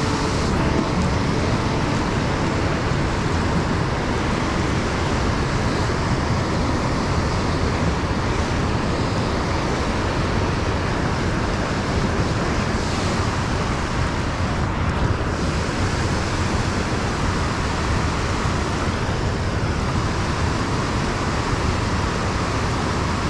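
Steady rushing of a fast river current, an even wash of water noise that holds at one level throughout.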